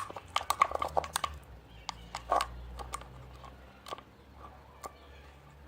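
Glue slime being stirred while it is activated with boric acid water, giving wet, sticky clicks and squelches: a quick run of them in the first second or so, then a few scattered ones.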